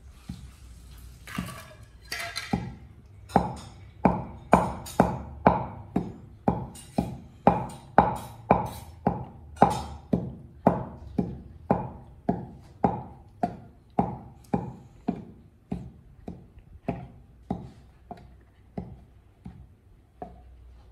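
Wooden pestle pounding dry seeds in a wooden mortar: a few scattered knocks at first, then steady strokes about twice a second, loudest in the first half and gradually softening.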